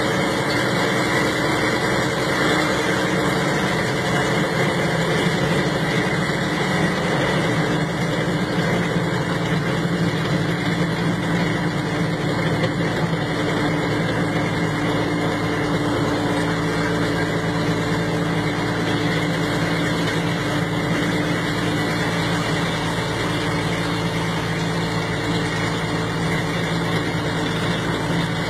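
A World War II Allis-Chalmers high-speed artillery tractor's engine running steadily as the tractor drives along, heard from inside its cab as an even, unchanging drone.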